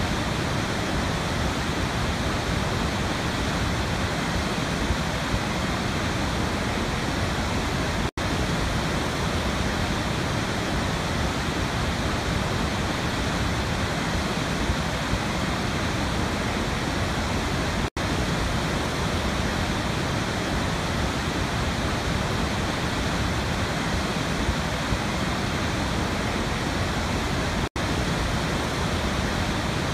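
A steady, even rushing noise that sounds like running water. It drops out for an instant about every ten seconds, where a short recording loops.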